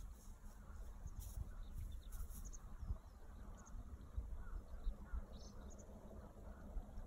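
Faint outdoor ambience: an uneven low rumble with a few short, distant bird chirps scattered through it.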